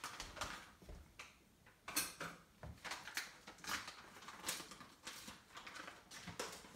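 Kitchen items being handled: a string of light knocks, clicks and clinks, the sharpest about two seconds in.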